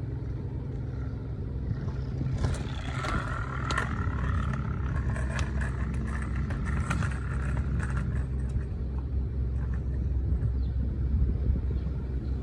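A scooter's built-in motorcycle-engine sound effect plays a steady low engine rumble. Scattered clicks and rattles come in the middle stretch.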